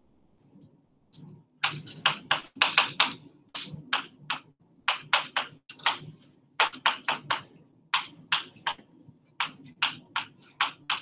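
A marker writing on a board: a quick run of short strokes and taps, starting about a second in.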